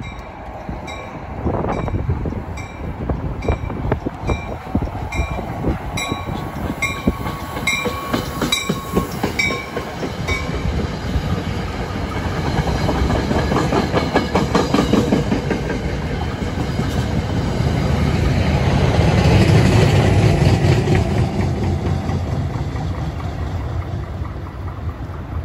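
NJ Transit diesel commuter train passing through the station. A bell rings about twice a second for the first ten seconds, then the wheels click rapidly over the rail joints. The low rumble of the passing train is loudest about three quarters of the way through.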